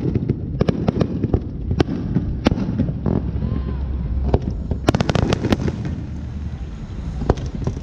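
Fireworks going off: a string of sharp bangs and cracks at irregular intervals over a low rumble, with a quick burst of crackling about five seconds in.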